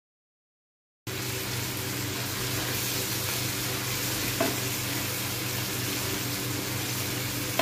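Onion-tomato masala sizzling in a frying pan, starting after about a second of silence, while a spoon stirs and mashes it. One short clack of the spoon against the pan about four and a half seconds in.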